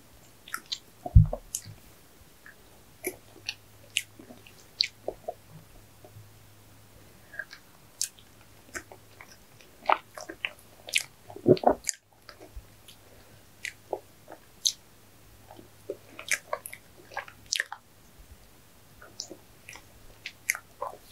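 Close-miked eating of ice cream cake: scattered wet mouth clicks and chewing, with a spoon and fork scraping and clicking in the cake. A low thump about a second in is the loudest sound.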